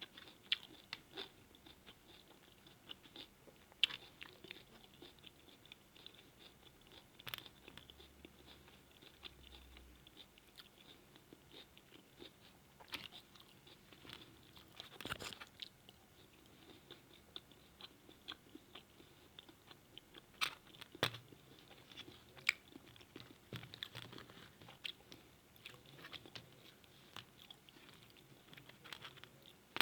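A person chewing and biting grilled liver, with irregular small crunches and mouth clicks.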